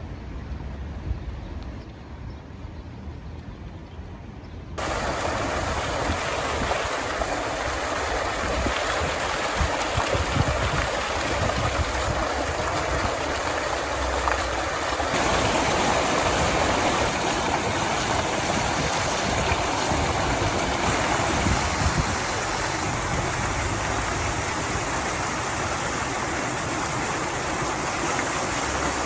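Stormy sea surf: an even, loud rush of breaking waves that sets in suddenly about five seconds in, with gusts of wind rumbling on the microphone.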